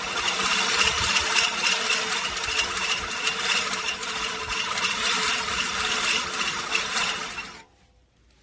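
LawnMaster LMRM1801 18-inch five-blade push reel mower cutting grass: the spinning reel whirs and clatters as it snips against the bed knife, with a faint regular pulse about three times a second. It stops abruptly near the end.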